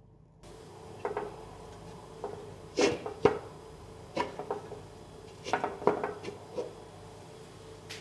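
Raw beef marrow bones set down one after another into a clay pot, knocking against the pot's wall and each other in a series of short, sharp clunks, the loudest two close together about three seconds in.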